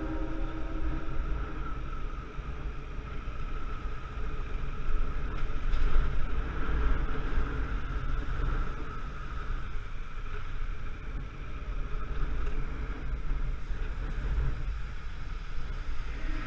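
Off-road motorcycle ridden along a rough dirt track: a steady engine and riding noise under heavy wind rumble on the bike-mounted camera's microphone.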